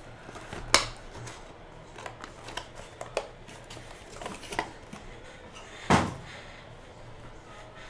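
Trading cards and their packaging being handled: a series of sharp clicks and light rustles, with a louder thump about six seconds in.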